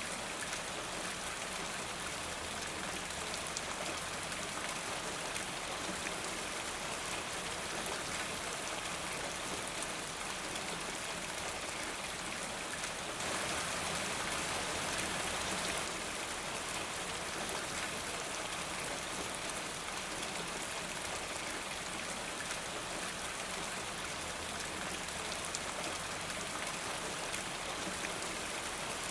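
Steady rain falling, briefly a little heavier about halfway through.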